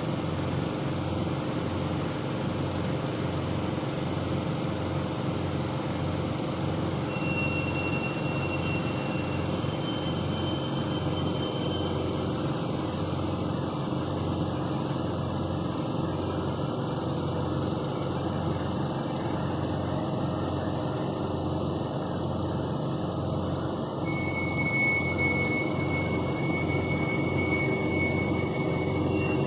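A steady low droning hum with an even, faint pulsing, like a distant idling engine, with thin high tones coming and going above it. This is the long-running strange noise being pointed out, whose source is unknown.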